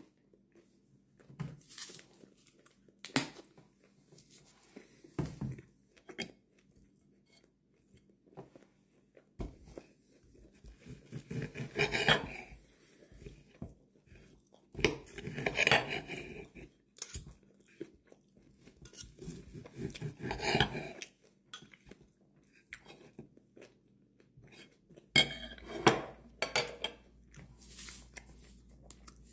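Knife and fork clinking and scraping on a plate while a steak is cut and eaten, with chewing between. There are scattered sharp clicks and three louder stretches of scraping, about twelve, fifteen and twenty seconds in.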